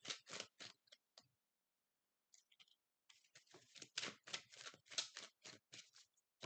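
A deck of oracle cards being shuffled by hand: a quick run of soft card slaps and clicks. It stops for a second or so, then starts again.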